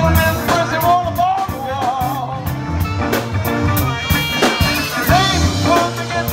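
Live band playing an upbeat soul tune: drum kit keeping a steady beat under electric bass and electric guitar, with a wavering melody line on top.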